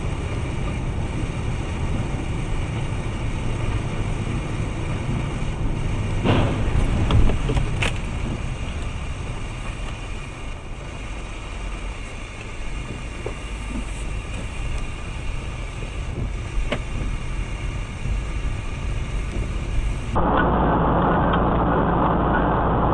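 Steady engine and road noise of a moving vehicle, as heard by its dashcam inside the cabin, with a few sharp knocks about six to eight seconds in. Near the end it gives way abruptly to a louder, muffled road noise from a different dashcam.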